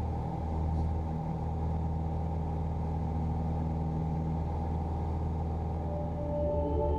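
Steady drone of a Piper PA-28's piston engine and propeller in level cruise, heard from inside the cabin. Soft ambient music with long held tones comes in near the end.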